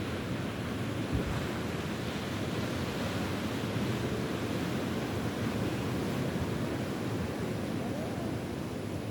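Ocean surf washing steadily, with wind on the microphone and a brief low thump about a second in.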